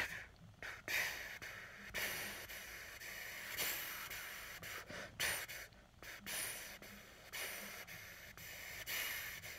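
A steady stream of breath blown onto the back of a hand, hissing, with repeated short extra bursts pushed into it. The bursts mark the accents of a horn excerpt, shaping the air as it would go into the horn.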